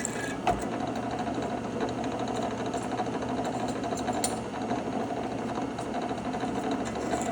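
Drill press motor and spindle running steadily, with a couple of light clicks.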